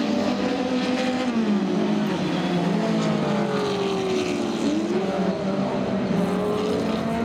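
A pack of historic touring-car racing engines running together through a corner. Several engine notes overlap; they drop in pitch as the cars brake, then rise again as the cars accelerate out about halfway through.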